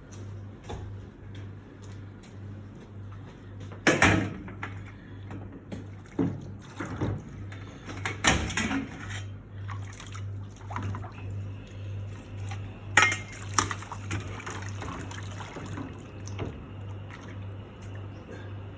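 Cleaning solution sloshing and splashing as a range-hood cover is washed, with a few sharp clatters, the loudest about 4, 8 and 13 seconds in, over a steady low hum.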